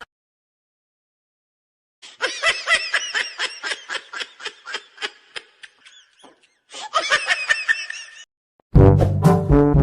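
Laugh sound effect: one person laughing in rapid, high-pitched bursts for about six seconds, then cut off abruptly. Music starts loudly just before the end.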